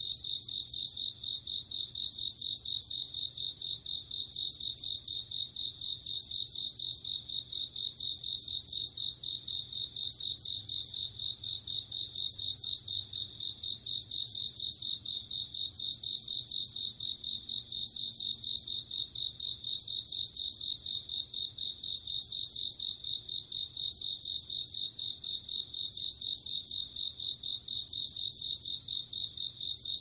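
Crickets chirping in a continuous high-pitched chorus, with a louder trill standing out about every two seconds.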